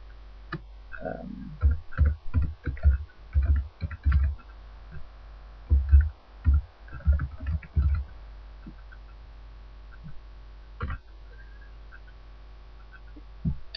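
Typing on a computer keyboard: a quick run of keystrokes for about six seconds, then a pause with one more click a few seconds later, over a low steady hum.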